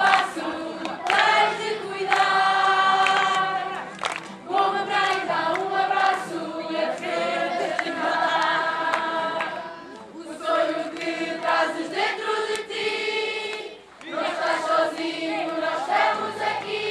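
A large group of children and adults singing a camp song together, in sung phrases with short breaks about 4, 10 and 14 seconds in.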